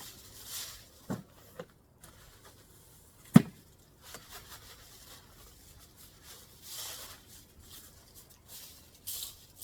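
Handling of a leaf-filled paper yard-waste bag: light rustling with a few soft knocks, and one sharper knock about three and a half seconds in.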